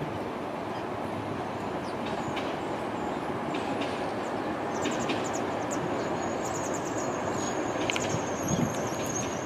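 Two coupled Alstom Citadis Dualis tram-trains running past with a steady rolling rumble. A thin, high steady squeal and light clicks join in about halfway through.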